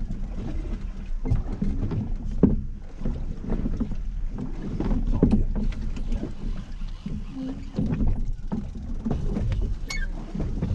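Steady low drone of a fishing boat's machinery, with wind and water noise and scattered clicks and knocks on deck.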